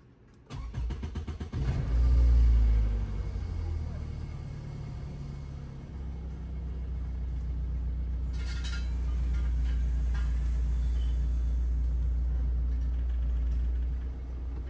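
Toyota Previa minivan's engine starting about half a second in, flaring up to its loudest for a second or so and then settling into a steady idle, heard from inside the cabin.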